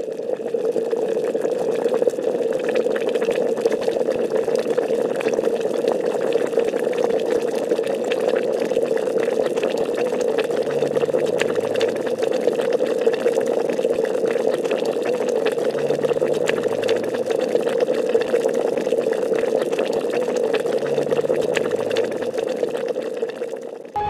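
Hot liquid bubbling steadily with a dense crackle.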